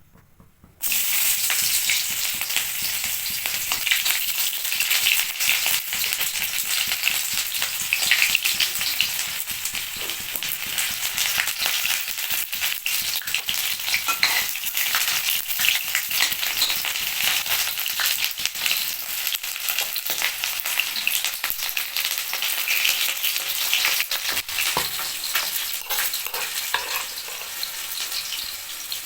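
Food frying in hot oil in a pan: a steady sizzle with scattered small crackles and clicks. It starts suddenly about a second in.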